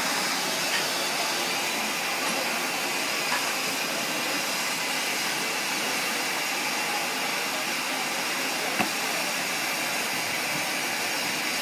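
Steam hissing steadily from BR Standard Class 5 steam locomotive No. 73096 standing at the platform, with a single sharp click about nine seconds in.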